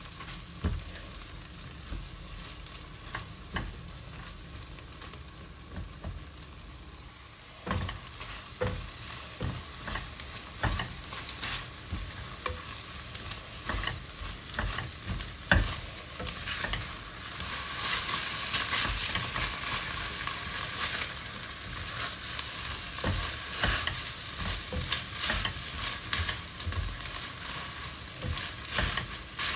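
Scrambled egg and sliced pork sizzling in a non-stick wok while a silicone spatula stirs and turns them, with many short strokes against the pan. The sizzle grows louder from about a quarter of the way in and is loudest a little past halfway.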